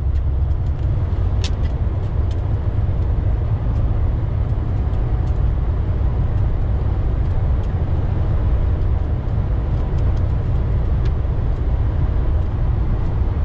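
DAF truck's diesel engine and tyre noise heard from inside the cab while driving: a steady low drone with road hiss above it.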